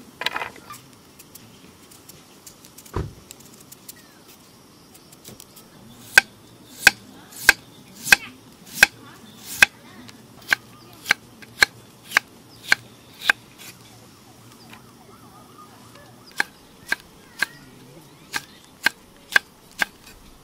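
Kitchen knife slicing vegetables on a wooden cutting board, each cut landing as a sharp knock on the board, about two a second. There is one knock about three seconds in, a run of about a dozen cuts, a short pause, then about seven more.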